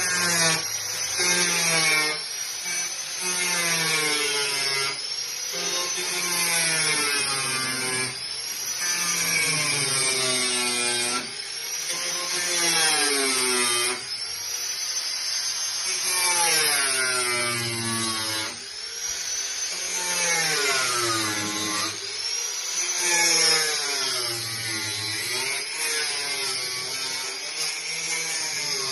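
Electric power tool running under varying load, its pitch repeatedly sagging and climbing back every second or two.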